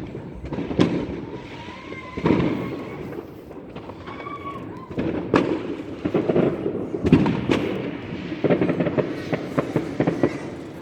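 Fireworks going off: separate loud bangs at irregular intervals, then a dense run of rapid crackling over the last couple of seconds.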